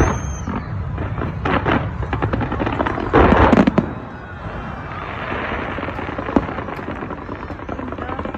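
Fireworks bursting and crackling overhead, with a loud burst of crackle about three seconds in and a single sharp crack near the end.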